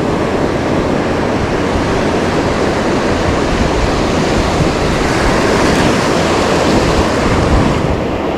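Ocean surf washing on the shoreline with a steady, loud rush, and wind blowing across the microphone.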